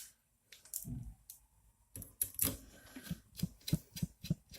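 Irregular small clicks and taps of screws and a hand screwdriver being worked into 3D printer kit parts, thickening into a quick run of clicks about two seconds in.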